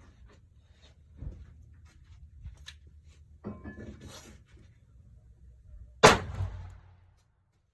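A single shot from a .44 Magnum Ruger Super Redhawk revolver with a 7.5-inch barrel, fired about six seconds in, with a short echoing tail. Faint handling noises come before it.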